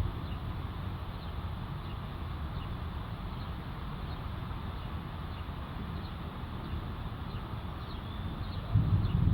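Steady low outdoor background noise with faint, scattered bird chirps, then a low rumble of thunder that starts building near the end.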